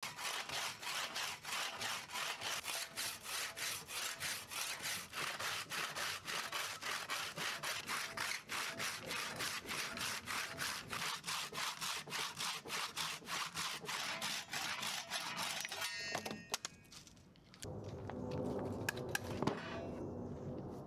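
Long hand saw cutting through a dry mulberry log with quick, even strokes, about three a second, stopping about sixteen seconds in. After a short pause come rubbing and a few knocks as the sawn log is handled on the wooden bench.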